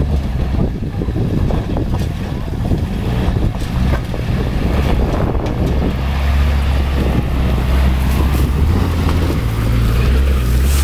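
Nissan Patrol 4WD engine working at low speed as the vehicle crawls up a steep rocky hill climb. Its low drone grows louder from about six seconds in as it comes close.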